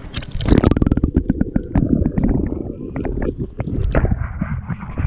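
Water sloshing and gurgling against a camera dipped at the waterline, with fast runs of clicks and splashes from about half a second in.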